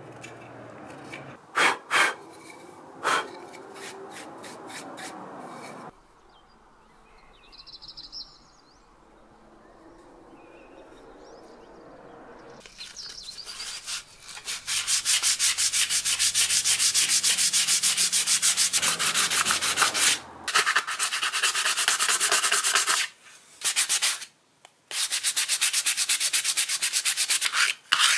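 A carving knife makes a few sharp slicing cuts into a small wooden bowl. After a quiet stretch, about halfway through, the bowl is hand-sanded with sandpaper: fast, even back-and-forth rubbing strokes with a few brief pauses.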